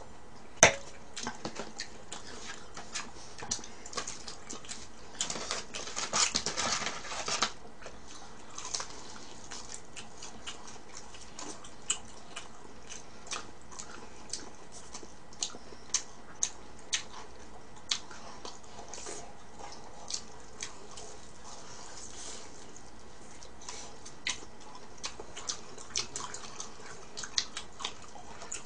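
Crisp fried chicken (Bburinkle) being bitten and chewed close to the microphone: scattered crunches and wet mouth clicks, with a dense spell of crunching several seconds in. A sharp knock about half a second in as a wine glass is set down on the table.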